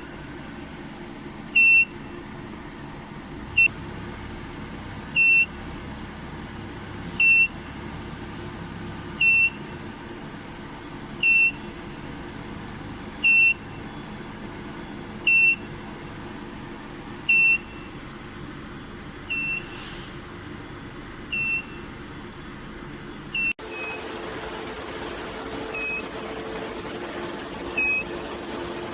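An electronic beeper sounding one short high tone about every two seconds over a steady machinery hum, the beeps fainter near the end.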